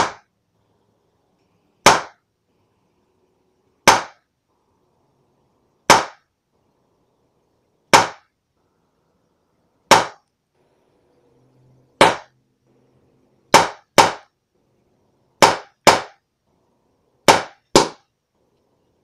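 BB gun shots, thirteen in all: one every two seconds at first, then in quick pairs about half a second apart near the end.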